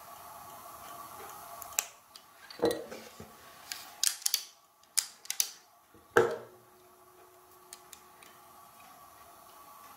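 Pliers and plastic blend-door actuator parts being handled and set down on a workbench: a scattering of sharp clicks and taps over a faint steady hum. The loudest is a knock about six seconds in, followed by a faint ringing tone.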